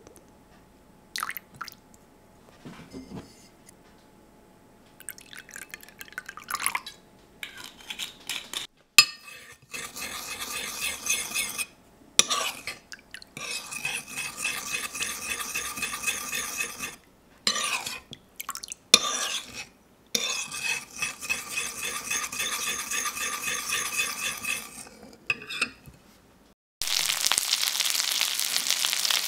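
A metal spoon stirring teriyaki sauce in a small bowl, scraping and clinking against the bowl in stretches of several seconds, after a few light clinks and pours early on. Near the end a steady loud sizzle of frying starts.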